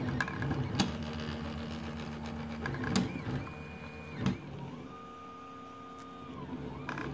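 3D printer running, its stepper motors whining in steady tones that glide up, hold and glide down as the print head speeds up and slows. A few sharp clicks come through, the loudest about three and four seconds in.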